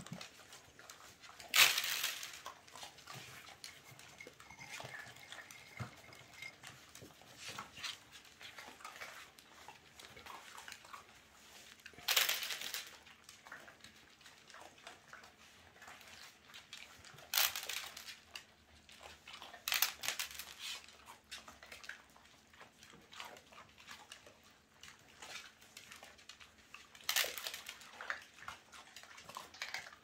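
Whippets and their puppies snuffling and crunching dry kibble off a tiled floor, with small clicks and patters throughout. About five louder clatters, each about a second long, stand out.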